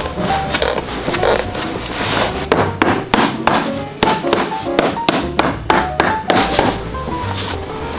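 A cobbler's hammer tapping repeatedly on a boot, a quick run of knocks at about three to four a second through the middle of the stretch, with background music throughout.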